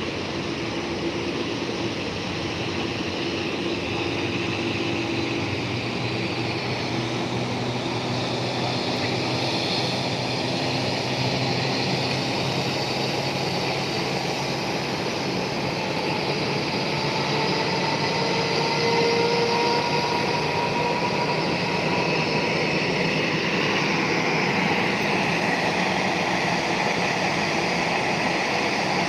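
Steady airport-apron noise: jet aircraft engines and ground vehicles running together, a continuous hiss with a high whine that shifts in pitch and grows a little louder about two-thirds of the way through.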